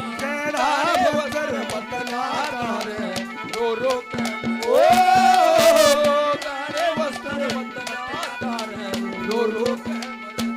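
Haryanvi ragni music: a melodic line over a steady drone, with hand drums keeping a fast beat. A louder held melodic phrase comes around the middle.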